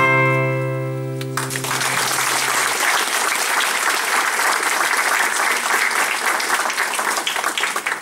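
An acoustic guitar's last chord rings out. About a second and a half in, an audience starts applauding, and the clapping fades near the end.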